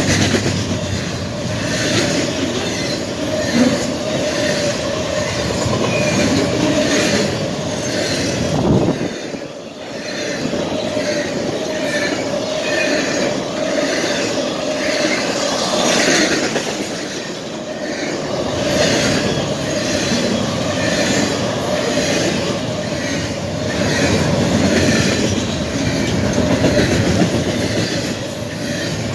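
Double-stack container train of well cars rolling past: continuous rumble of steel wheels on rail with repeated clicking over the rail joints and a steady wheel squeal. The sound dips briefly about nine seconds in.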